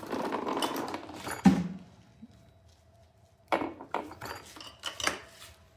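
Metal parts and hand tools clattering during motorcycle engine teardown work: a rattling scrape ending in a knock about a second and a half in, then a run of sharp clicks and clanks.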